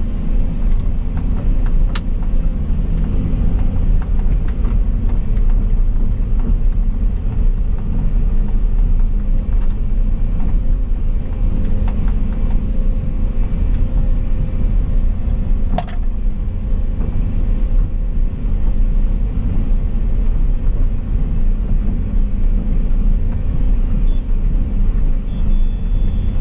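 Volvo EC220 excavator's diesel engine running steadily, heard from inside the cab as a low, even rumble, with a couple of faint clicks.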